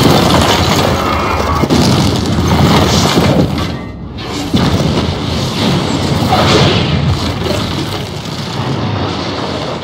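Film soundtrack of a large-scale destruction scene: music mixed with heavy booming explosion and crashing effects. The sound dips briefly about four seconds in, then a fresh blast starts.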